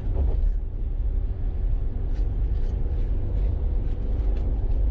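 Steady road and engine noise heard from inside a car cruising at about 50 mph, mostly a low rumble of tyres on the road surface with a faint steady hum.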